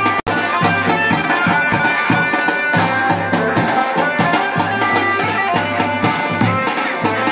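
Garhwali folk drums, dhol and damau, beating a quick rhythm with a held melody line over them, as music for a deity palanquin dance. The sound cuts out for an instant just after the start.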